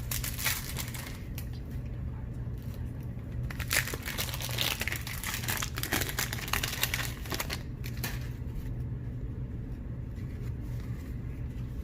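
Baseball card packs and cards being handled: wrapper crinkling and card stock rustling in irregular bursts, busiest over the first eight seconds, over a steady low hum.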